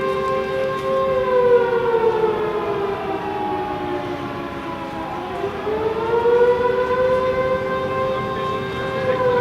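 Alarm siren wailing in two tones together: the pitch falls slowly to a low point about five seconds in, then climbs back to its former steady pitch.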